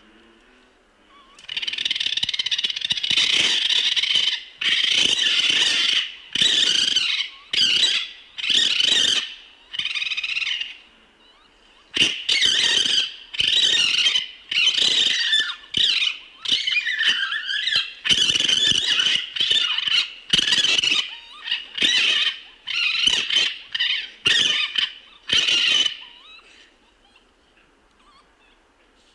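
Loud, harsh, high-pitched animal squealing: a first long cry of about three seconds, then some twenty cries of about a second each with short gaps between them.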